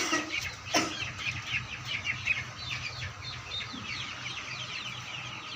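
A flock of young Vanashree chicks peeping together: many short, high chirps overlapping without a break. Two sharp knocks sound within the first second.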